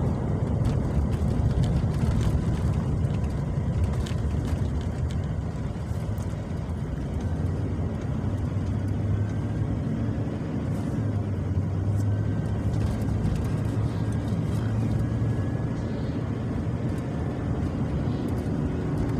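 Steady engine and road rumble heard from inside a moving vehicle's cabin, with the engine note shifting slightly now and then.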